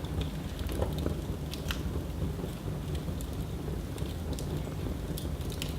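Wood fire burning in a fireplace, crackling: scattered sharp pops and snaps over a steady low rumble.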